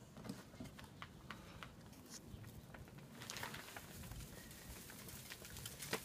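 Faint rustling and crackling of tissue paper being handled and torn for a paper snowstorm effect, growing denser about three seconds in.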